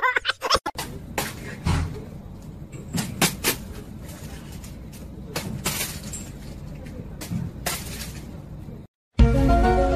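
Scattered sharp knocks and thumps, several of them loud, over a low steady room hum; music starts near the end.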